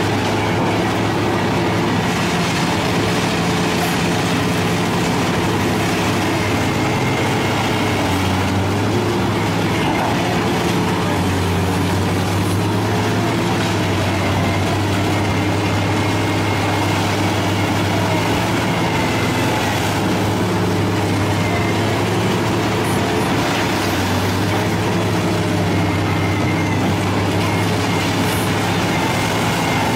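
Lindner Urraco 95 DK mobile shredder running and shredding scrap metal, a steady low machine drone with a dense mechanical noise over it that dips slightly in pitch now and then as the load changes.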